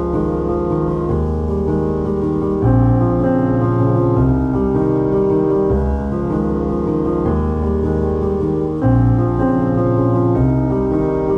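Background music led by piano or electric keyboard, chords changing every second or two over a steady bass.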